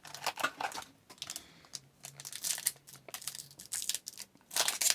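Crinkling and rustling of a foil trading-card pack wrapper being handled, with irregular crackles and some tearing.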